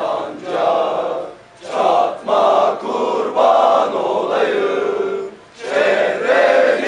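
A crowd of marchers chanting slogans in unison, many male voices together in loud repeated phrases, with brief breaks about a second and a half in and again near the end.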